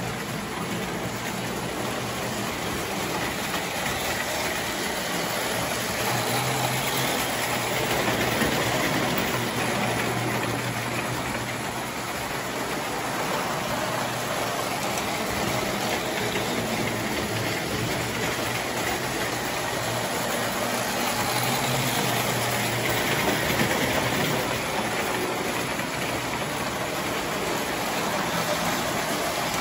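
Prewar tinplate toy trains running on the layout: a steady whir and rattle of their motors and wheels on the tin track, over a low steady hum. It swells and fades gently as trains pass close by.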